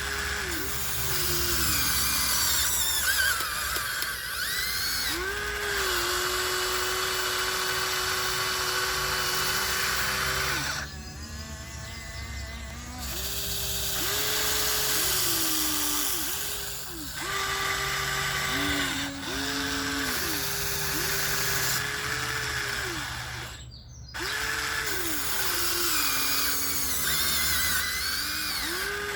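Huina 1494 radio-controlled model excavator's electric motors and gearboxes whining as it digs. The steady whine dips in pitch and recovers again and again as the arm and bucket are worked, with brief lulls about eleven seconds in and again near twenty-four seconds.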